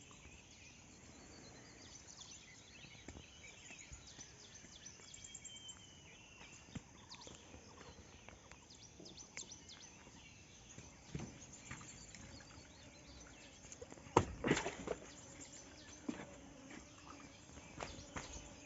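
Faint outdoor ambience with scattered small knocks and clicks and a few faint high chirps; a louder cluster of knocks comes about fourteen seconds in.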